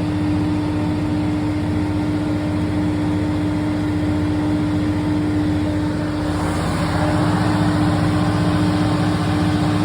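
Generator set running steadily, a constant engine hum with a strong steady tone; from about two-thirds of the way in, an added rougher hiss joins it.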